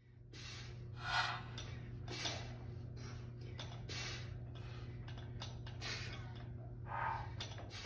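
A man breathing out in short, sharp puffs, one every second or two, as he pulls a dumbbell through one-arm bent-over rows, over a steady low hum.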